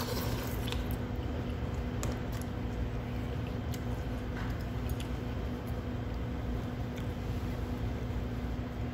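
Someone eating noodle soup: slurping and chewing noodles, with scattered light clicks of wooden chopsticks and a plastic spoon against a paper bowl, over a steady low hum.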